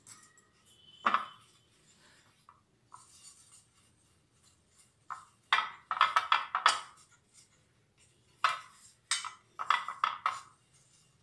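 Fingertips rubbing oil over the metal cups of an aluminium idli plate to grease it, coming in several short bursts of rubbing.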